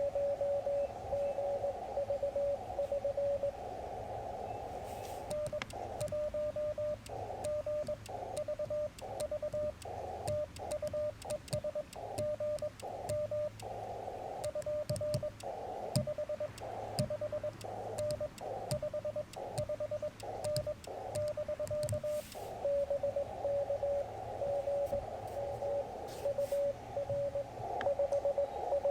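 Morse code from a Yaesu FT-891 transceiver: a steady mid-pitched CW tone keyed on and off over narrow-filtered receiver hiss. From about five seconds in until about twenty-two seconds, sharp clicks of the twin-paddle key come with the tone and the hiss drops in and out between characters, as the operator sends with the sidetone; then received code in steady hiss resumes.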